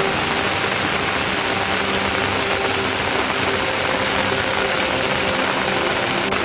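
Steady, heavy rain hissing without a break, with faint held tones beneath it.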